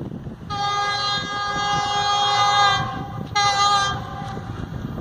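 Diesel locomotive's air horn sounding twice as the train approaches the station: one long blast of about two seconds, then a short one.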